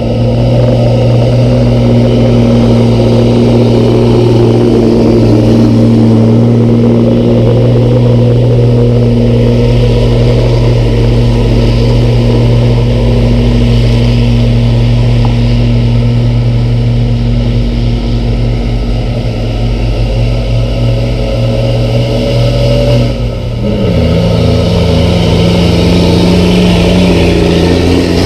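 Heavy diesel engine of a Hino hauling dump truck running steadily and hard. It dips briefly about 23 seconds in and comes back at a lower pitch.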